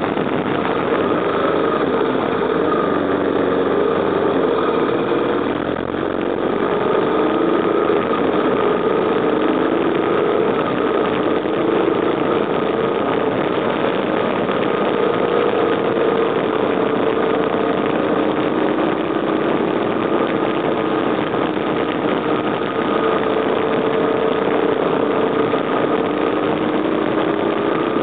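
BMW R1200GS Adventure's boxer-twin engine running steadily under way, its pitch rising and falling a little through the bends, over a steady rush of road and wind noise.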